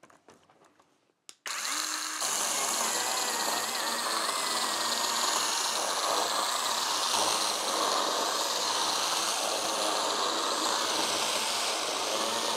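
Einhell GE-PS 18/15 Li BL cordless brushless pruning chainsaw starting up about a second and a half in and cutting steadily through a 13 by 11 cm block of hardwood, taken for oak, without bogging down.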